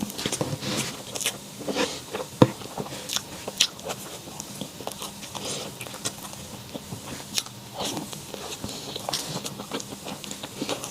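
A person biting and chewing food close to the microphone, with irregular crisp clicks and crackles.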